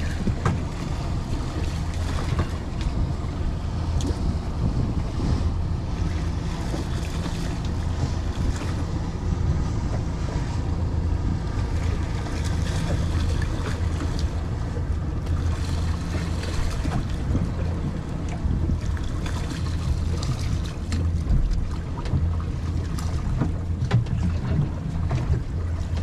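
Wind buffeting the microphone over water slapping against a small boat's hull, with a few light knocks.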